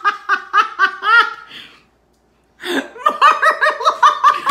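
Women laughing hard in quick repeated bursts of about six a second. The laughter breaks off about a second and a half in, and a second fit of laughter starts about a second later.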